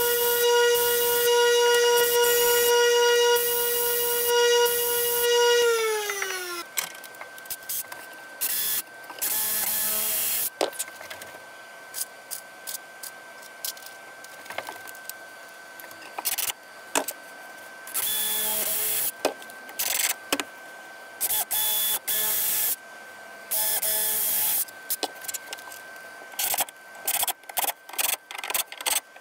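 Bench grinder running steadily, then spinning down with falling pitch once switched off about six seconds in. After that, a DeWalt Atomic cordless drill/driver runs in many short bursts, driving screws into wood, with a quicker series of bursts near the end.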